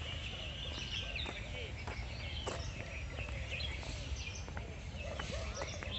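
Many birds chirping and calling at once, short quick chirps overlapping throughout, over a steady low rumble.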